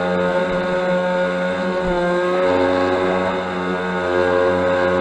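A small RC boat's motor running steadily, heard from on board, with a brief dip and wobble in its pitch about two seconds in.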